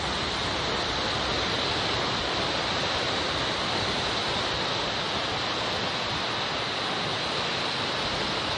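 Rushing water: a steady, even hiss of flowing river water that cuts off suddenly at the end.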